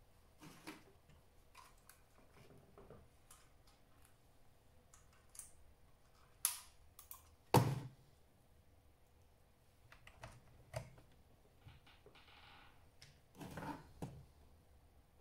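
Scattered clicks and light knocks from an HP 625 laptop and its parts being handled during servicing. The loudest knock comes a little past halfway, and there is a short hiss a little after twelve seconds.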